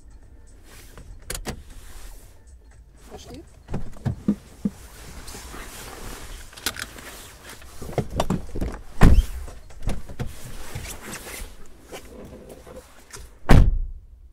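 Fabric rustling, clicks and soft bumps of people shifting about inside a car, with a heavy thump about nine seconds in and another near the end.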